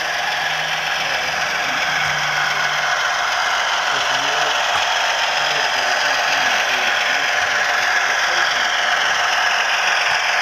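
Model trains running on a layout: a steady mechanical clatter of wheels and gearing on the track, growing slightly louder as the HO scale diesel locomotive comes closer.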